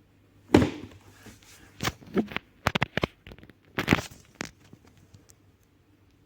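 Handling noise from unboxing the fan: a string of knocks, taps and rustles as the box and its packaging are handled, loudest at the first knock and again near four seconds in.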